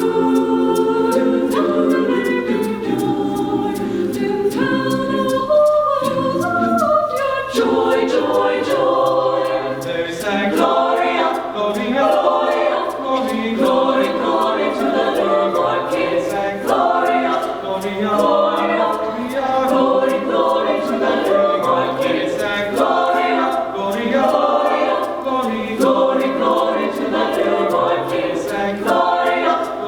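Madrigal choir singing a Christmas carol a cappella in several vocal parts, the lines moving faster and more rhythmically from about seven seconds in.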